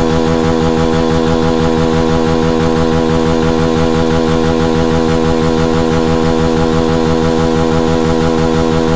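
Motorcycle engine running in neutral, held at a steady rev with the bike standing still.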